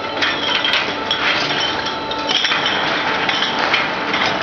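Glass wine bottles clinking and knocking against one another as they move through a bottle washing machine: a dense, continuous clatter over the machine's steady running noise.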